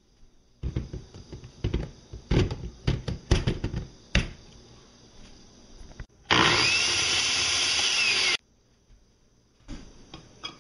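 Hamilton Beach 10-speed blender: a few seconds of knocks and clunks as it is handled, then its motor runs loudly and steadily for about two seconds after a button is pressed, and cuts off suddenly.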